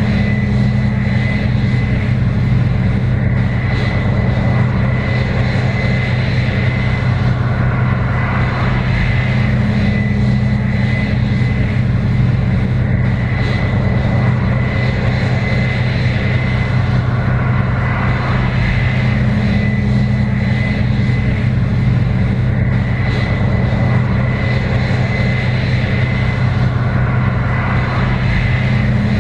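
Case IH 7120 Axial-Flow combine running while harvesting corn: a steady, loud diesel engine drone with a constant high whine above it, swelling slightly about every ten seconds.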